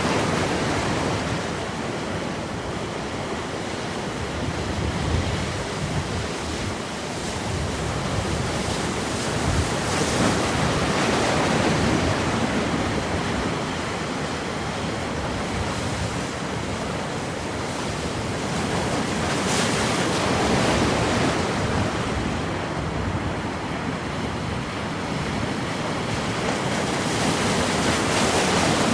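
Black Sea surf breaking on the shore, a continuous rushing noise that swells and eases as the waves come in, with some wind on the microphone.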